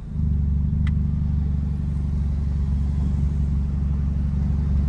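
Straight-piped Dodge Dart exhaust running steadily at an even engine speed, a low, unchanging engine note that comes up in level just at the start. A single light click about a second in.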